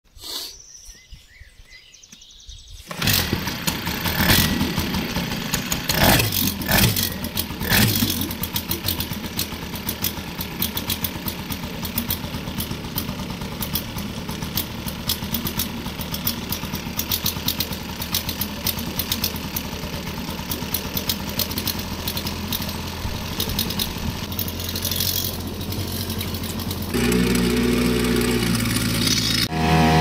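Hangkai 3.6 hp two-stroke outboard motor starting about three seconds in, revved a few times, then running steadily. Near the end it runs louder with a steadier pitch as the boat gets under way.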